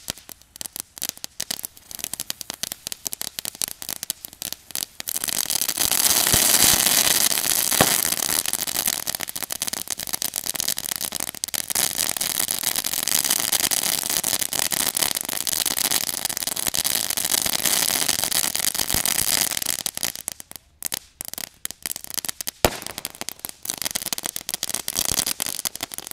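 Ground firework fountain spraying sparks. It crackles rapidly at first, then from about five seconds in burns with a loud steady hiss, and falls back to crackling with a sharp pop near the end.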